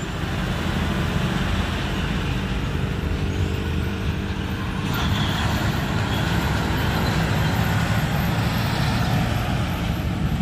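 Heavy diesel truck engine running steadily, with road and traffic noise around it. A brief hiss comes about five seconds in.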